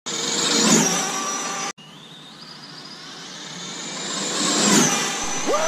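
Arrma Infraction RC car's brushless motor whining at speed, with a rush of wind and tyre noise. The sound breaks off abruptly under two seconds in; then the whine climbs steadily in pitch and loudness as the car accelerates, loudest near the end.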